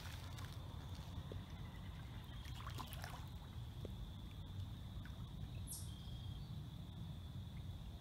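Faint splashing of a hooked carp thrashing at the water's surface beside a landing net, with a cluster of splashes about three seconds in, over a steady low rumble.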